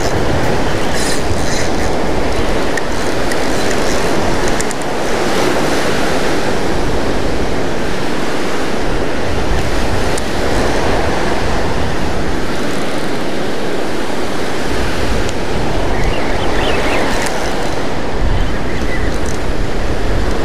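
Surf breaking and washing steadily onto a sandy beach, with wind buffeting the microphone.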